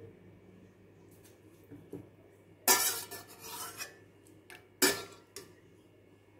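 Metal ladle clanking against a stainless steel pot while scooping blanched spinach out of the water. There are two sharp clanks about two seconds apart; the first trails off over about a second, and light clicks fall between them.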